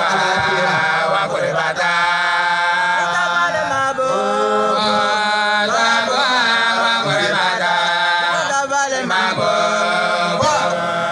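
A man's voice chanting devotional praise into a microphone, in long held notes that bend and glide with few breaks.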